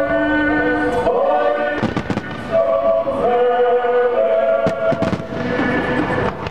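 Fireworks going off in several sharp bangs over music with long held notes, the soundtrack of a pyromusical display.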